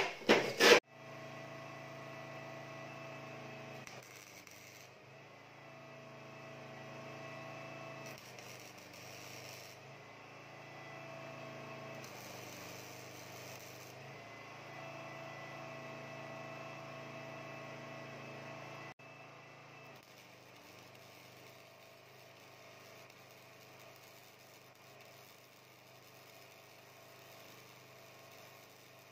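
A steady electrical hum with a few held tones that change every few seconds and drop quieter about two-thirds of the way through. It has none of the crackle of a welding arc. A brief metallic clatter comes right at the start.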